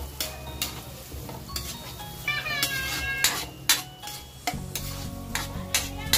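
Metal spatula scraping and tapping against an aluminium wok as chopped onion and garlic are stirred in melting butter, with a light sizzle underneath. The scrapes come as an irregular string of sharp strokes.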